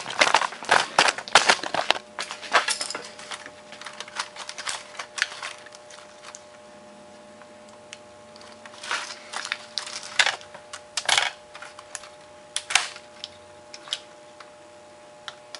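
Clicks and clatter of a smashed laptop's loose plastic keys and broken casing being pulled and handled, dense over the first few seconds, then scattered single clicks over a faint steady hum.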